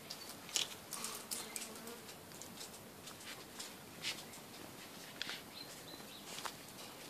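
Faint scattered clicks and light scratching from a hooded crow pecking and shifting its feet on a wicker chair, with the strongest clicks about half a second and four seconds in.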